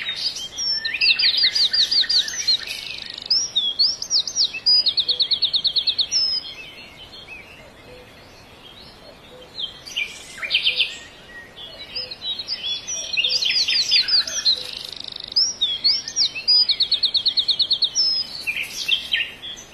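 A songbird singing: two long bouts of quick whistled notes and rapid trills, the second beginning about twelve seconds after the first, with short calls in between.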